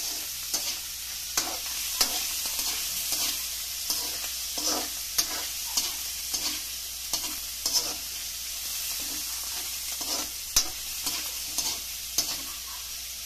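Shelled mussels sizzling as they sauté in oil in a metal wok, with irregular clinks and scrapes of a metal ladle against the wok as they are stirred.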